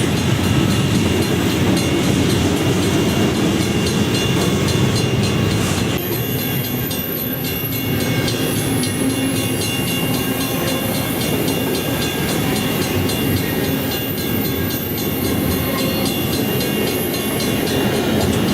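Train rolling past, a steady heavy rumble of wheels on rail with rapid clicking as the wheels cross rail joints.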